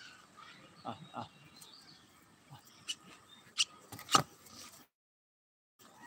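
A few sharp knocks and bumps from the phone camera being handled and moved, the loudest about four seconds in, over faint outdoor background sound with light bird chirps; the sound cuts out abruptly for about a second near the end.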